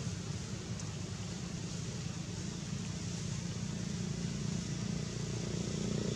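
Steady low rumble of motor traffic over an even outdoor hiss, growing louder near the end.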